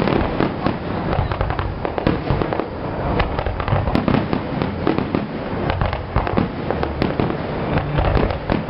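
Fireworks display: aerial shells bursting one after another in a dense, continuous run of bangs and crackles.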